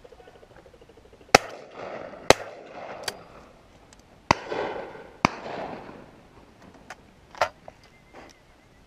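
Shotguns firing at flying game birds: two loud shots about a second apart, then another pair about two seconds later. A few fainter, more distant shots come in between and afterwards.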